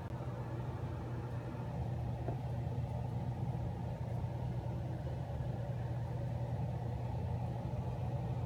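Steady low mechanical hum, even and unbroken, with no distinct events over it.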